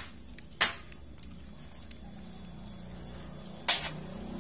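Sharp clinks of a metal digging tool striking sandy, stony soil: one at the start, one just under a second in and one near the end.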